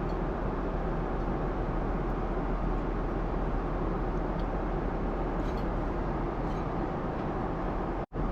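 Steady cabin noise of a jet airliner in cruise, the even rush of engines and airflow, with a few faint light clicks. It cuts out briefly near the end.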